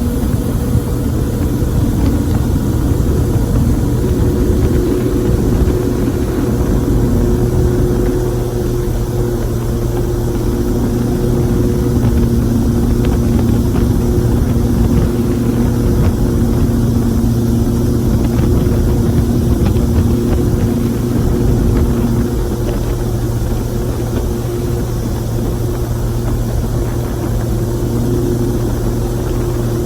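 Motorboat engine running steadily while the boat is under way, with a strong low rumble throughout.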